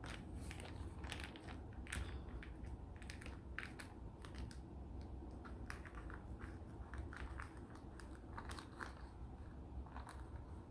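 Small scissors cutting into the packaging of a courier packet: irregular faint snips and clicks with crinkling of the wrapper.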